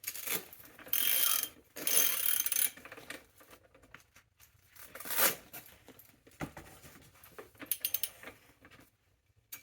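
Metal bicycle parts being worked loose by hand: two short, loud scraping or hissing bursts near the start, another a few seconds later, then a scatter of small metallic clicks and clinks.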